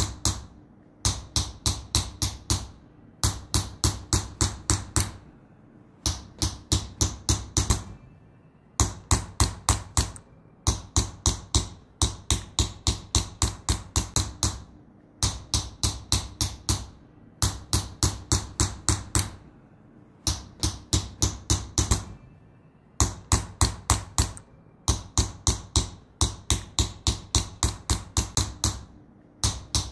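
Small hammer tapping a chasing chisel into sheet metal, as in Persian qalamzani engraving. The sharp taps come in quick runs of about five a second, broken by pauses of about a second.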